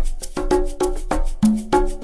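Background music with a quick, steady percussive beat and short plucked-sounding notes.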